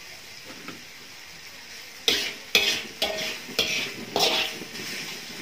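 A metal spatula scraping and knocking against a wok as noodles are stir-fried, over a low frying sizzle. For about the first two seconds only the sizzle is heard; then the spatula strikes come about twice a second, some leaving a short metallic ring.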